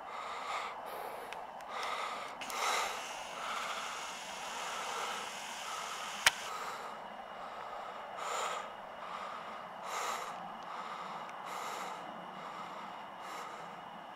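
A person breathing hard and rhythmically, about one breath every second and a half, with a single sharp click about six seconds in.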